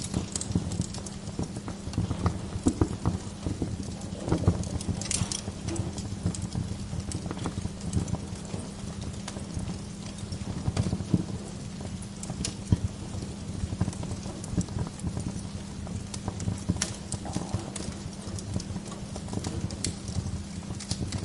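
Wood fire crackling, with a dense run of small snaps and a few sharper pops scattered through, over a steady low rumble.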